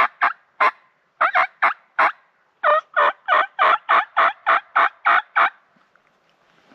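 Turkey yelping: a series of short, loud yelps, a few uneven ones at first, then about a dozen evenly spaced at roughly three a second, stopping about five and a half seconds in.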